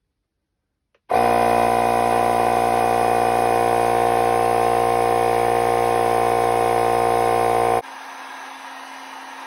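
Electric air pump buzzing loudly and steadily as it inflates a Segway miniPRO tire to seat the bead. It cuts off abruptly about seven seconds in, leaving a quieter steady hiss.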